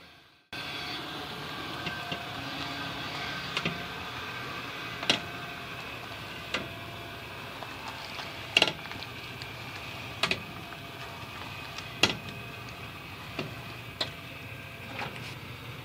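2008 Honda Odyssey minivan being driven, a steady drone with sharp knocks every one to two seconds.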